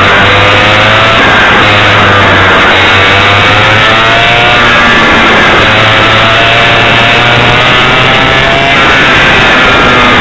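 A 100cc two-stroke kart engine revs up three times as the kart accelerates, its pitch climbing over a few seconds each time. The sound is heavily distorted by the tiny camera's microphone overloading.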